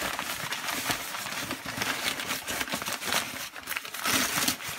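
Crumpled packing paper rustling and crinkling as a hand rummages through it, a continuous run of small crackles.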